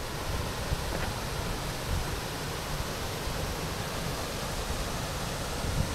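Steady rush of a wide, low waterfall spilling over a rock ledge into a river pool, with an uneven low rumble underneath.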